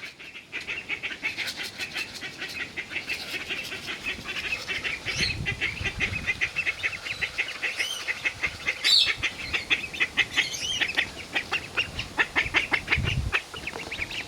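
Five-week-old runner ducklings peeping as a group, many short high calls a second, with a few louder rising whistles, the loudest about nine seconds in. Dull rumbles come in twice, near the middle and near the end.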